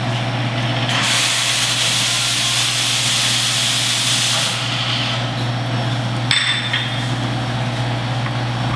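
Espresso machine in use: a steady low hum, with a hiss of steam lasting about three and a half seconds starting about a second in, and a sharp click a little past the middle.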